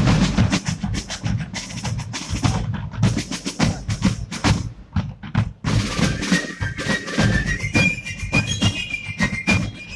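Military band drumming: rapid snare strokes and rolls over bass drum, with a high-pitched melody joining about six seconds in.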